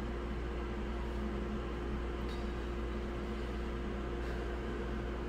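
Steady low machine hum with a constant mid-pitched tone, and two faint clicks.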